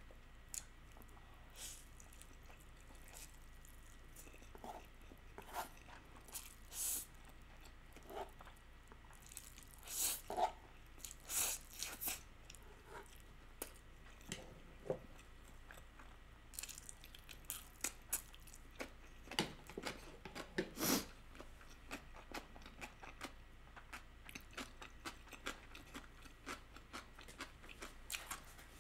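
Close-up mouth sounds of a person chewing a bite of spicy stir-fried instant noodles: faint, irregular wet clicks and smacks, a little louder about ten seconds in and again about twenty seconds in.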